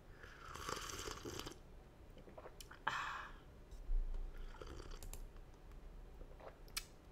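Three quiet sips of hot coffee drawn in noisily from a mug, with a few small clicks between them.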